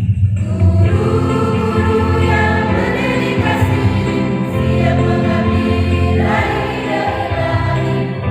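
A school choir singing the school march in unison over a backing with strong, steady bass notes.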